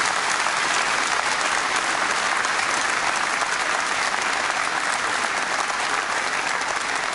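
Large seated audience applauding steadily, a sustained wash of clapping that starts to thin out near the end.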